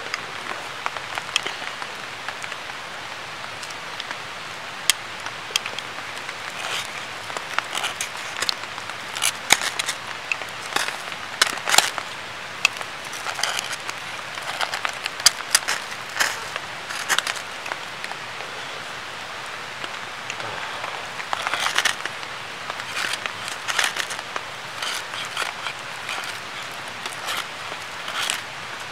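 A ferro rod is struck again and again with the spine of a knife, giving short, sharp rasping scrapes in irregular bursts as sparks are thrown onto pine feather sticks and charred wood, over a steady background hiss. The sparks do not light the tinder.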